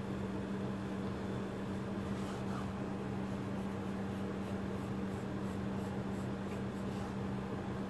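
Colouring pencil scratching on paper in short shading strokes, faint, over a steady low hum.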